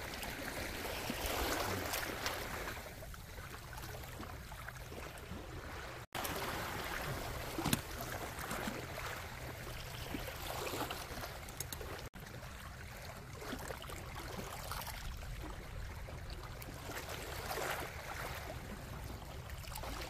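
Sea water washing and lapping against shore rocks, a steady wash that swells and eases every few seconds, with one short knock about eight seconds in.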